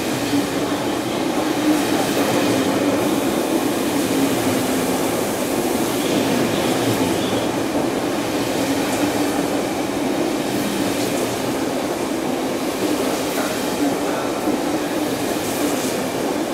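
KTT double-deck passenger coaches running past a station platform at speed: a steady rumble of wheels on rail with a low hum and a few faint clicks.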